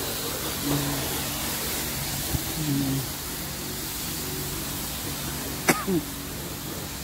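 Self-service car-wash lance spraying rinse water, a steady hiss, with a few brief voice sounds early on and one sharp click near the end.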